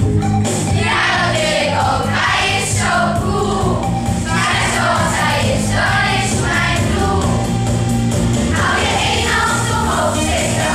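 A group of children singing a song together over a backing track with a steady bass line.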